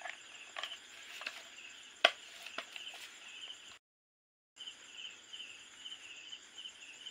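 Crickets chirping steadily, with a few sharp clicks and knocks of plastic parts and a glue gun being handled, the loudest about two seconds in. The sound cuts out for under a second near the middle.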